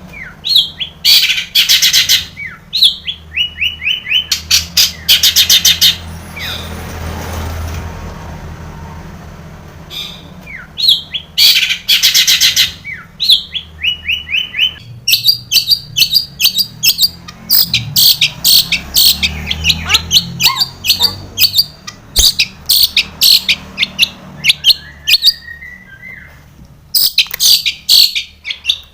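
Long-tailed shrike (cendet) singing a loud, fast, varied song: bursts of harsh chattering and quick runs of sharp repeated notes, packed with mimicked phrases. About a third of the way in the song pauses for a few seconds while a low rumble is heard, then comes back denser.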